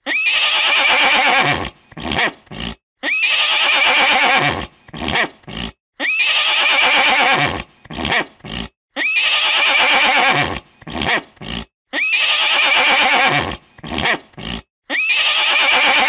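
Horse neighing: a whinny of about a second and a half followed by two or three short falling sounds, repeated the same way every three seconds, six times over.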